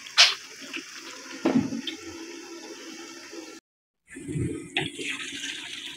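Sarson ka saag simmering in a pan on a high flame, a steady watery hiss and bubbling. A spatula knocks against the pan just after the start and again about a second and a half in. The sound cuts out for half a second near the middle.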